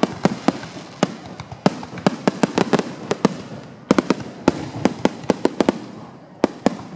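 Fireworks display: a rapid, irregular string of sharp bangs and pops, several a second, over a continuous rumble of distant bursts and their echoes.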